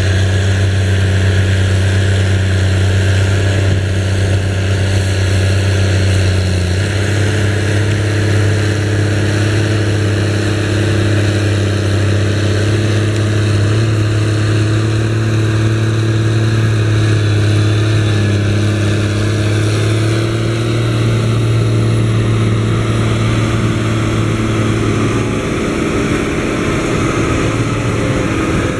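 Challenger MT765C rubber-tracked tractor's diesel engine running under load while pulling a Väderstad TopDown cultivator through the soil: a loud, steady deep drone whose pitch shifts slightly about a quarter of the way in and eases off near the end.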